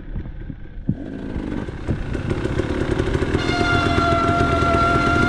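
Dirt bike engine running and growing louder; from about three seconds in it holds steady high revs with a steady whining pitch.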